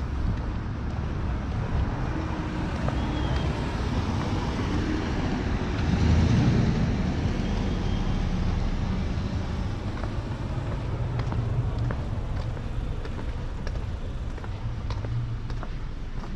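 City street traffic: a steady rumble of cars that swells about six seconds in as a vehicle passes close by.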